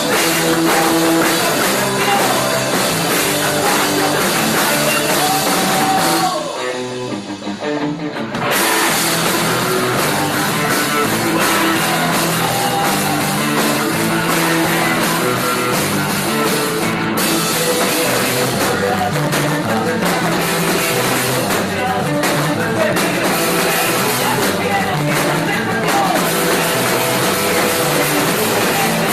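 Live rock band playing, with drum kit and guitar. About six seconds in the drums and cymbals drop out and the music goes quieter for a couple of seconds, then the full band comes back in.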